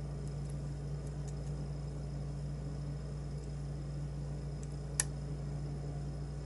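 Faint metallic ticks of a lock pick working the pins inside a challenge lock, with one sharp click about five seconds in, over a steady low hum.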